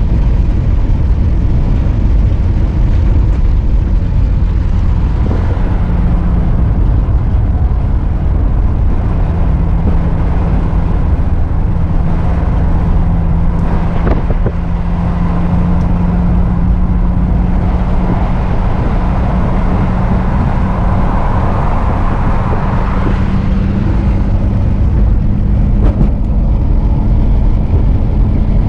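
Motor vehicle driving: a steady, loud low rumble of engine and road noise. An engine tone comes in about six seconds in and slowly rises in pitch.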